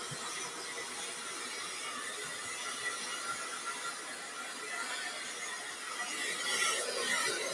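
Steady rush of air with a thin motor whine from a handheld electric air appliance running on its high setting.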